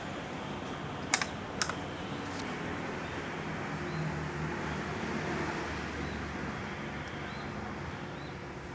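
Steady rushing whoosh of two 56-inch Mitsubishi Electric C56-GW industrial ceiling fans running, the air noise coming from their blades. Two sharp clicks sound about a second in, half a second apart.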